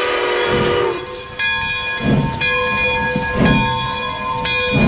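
Pere Marquette 1225 steam locomotive's whistle sounds a chord of several notes and stops about a second in. Then the locomotive's bell rings steadily over slow exhaust chuffs, about one every second and a half, as the engine moves forward at walking pace.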